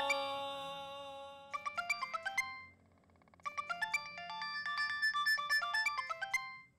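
A mobile phone plays a melodic ringtone of quick, bright, short notes. It starts about a second and a half in, stops briefly near the middle, and then repeats. Held background-score music fades out under it at the start.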